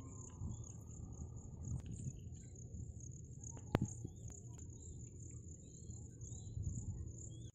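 Insects trilling steadily on one high, unbroken note, over a low rumble, with a single sharp click a little under four seconds in.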